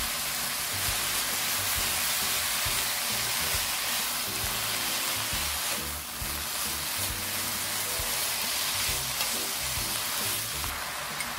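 Mung bean sprouts and vegetables sizzling in chili oil in a hot wok as they are stirred and tossed with wooden spoons, with background music underneath.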